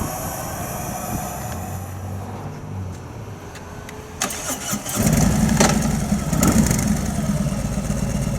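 Harley-Davidson motorcycle engine starting about four to five seconds in, then running loudly at idle.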